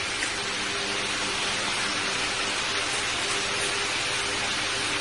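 Steady, even hiss like rain or white noise, with a faint low hum underneath.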